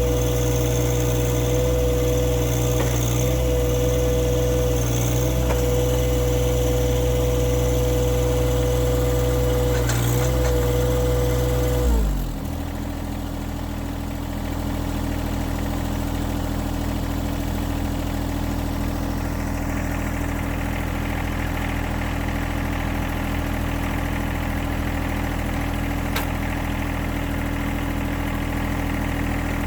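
John Deere 1025R's three-cylinder Yanmar diesel engine running steadily at raised speed, then throttled down about twelve seconds in to a lower, steady idle.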